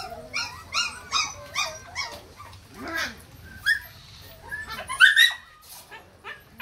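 A litter of hungry young puppies whimpering and yelping in short high-pitched cries. A quick run of cries comes in the first two seconds, and the loudest cries come about five seconds in.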